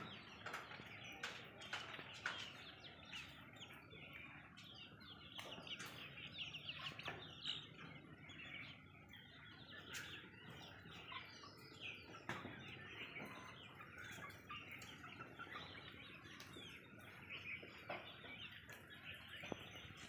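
Desi chickens clucking faintly as they forage, with many quick, high chirps throughout and a few sharp clicks.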